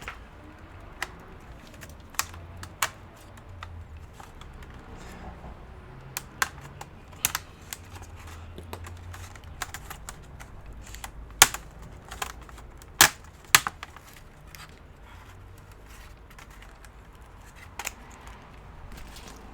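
Irregular sharp clicks and taps as a laptop's keyboard is pried out and handled, a few louder snaps near the middle.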